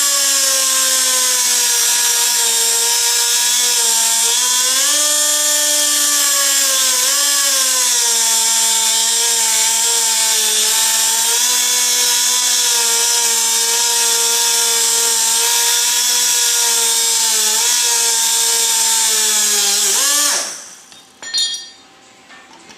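Electric power tool cutting steel bed rail, running with a steady whine and hiss whose pitch dips briefly under load a few times. About 20 seconds in it is switched off and its pitch falls as it winds down, followed by a couple of light knocks.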